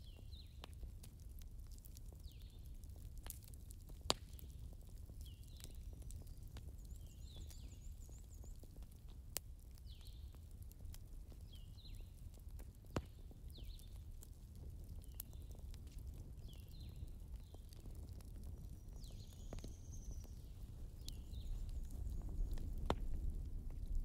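Recorded fireplace sound from a digital fireplace video: soft crackling over a low rumble, with scattered sharp pops, a little louder near the end.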